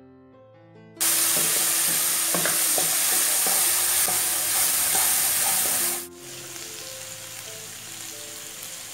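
Ground spice paste sizzling in hot oil in a wok, stirred with a wooden spatula that scrapes the pan now and then. The sizzle starts loud about a second in and drops suddenly to a much quieter sizzle about six seconds in.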